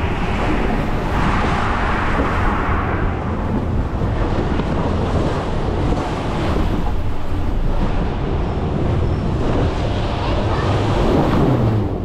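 Water rushing under and around an inflatable raft as it slides down a water-slide flume, a steady loud rush with wind buffeting the microphone.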